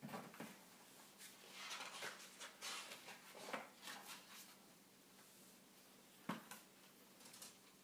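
Paper pages of a large picture book being turned by hand: soft, irregular rustling and flapping over the first few seconds, then a single sharp tap a little past six seconds in as the book is handled.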